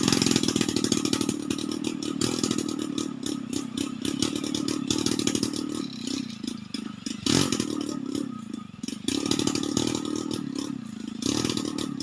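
An engine running steadily, with repeated knocks and clatter over it and one heavy thump about seven seconds in; the engine fades at the very end.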